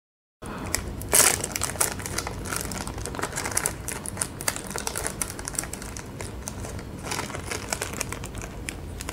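Red foil chip pouch from a Paqui One Chip Challenge box crinkling and rustling as it is pulled from the box and handled open. The sound starts a moment in, is a steady stream of small crackles, and is loudest about a second in.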